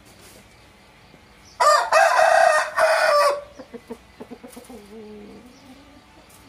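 A rooster crows once, loud for under two seconds, starting about a second and a half in, then trails off into a few lower clucking notes.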